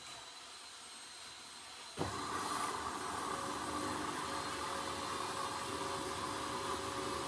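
Hoover H-Wash 300 washing machine: about two seconds in, a steady machine noise starts suddenly and runs on at an even level, a rushing sound with a constant hum.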